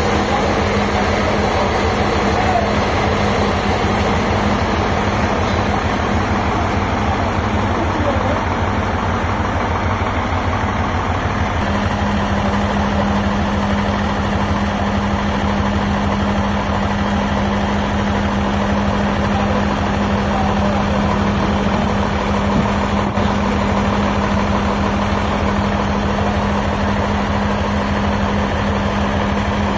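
An engine running steadily with a constant low hum that grows stronger about twelve seconds in.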